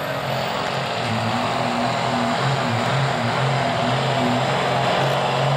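Modified diesel pickup pulling the weighted sled, its engine running hard under heavy load. The engine note is loud and steady, its pitch wavering slightly, with a rushing noise over it.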